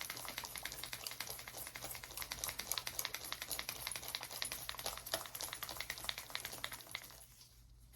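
A small tuberculin vial being rolled between gloved palms: a fast, dense run of light clicks and rubbing that dies away about seven seconds in.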